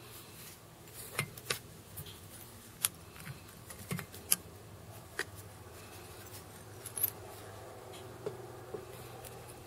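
About ten light, sharp clicks and ticks at irregular intervals, as a wire rib is wound around a fly hook held in a fly-tying vise, over a faint steady low hum.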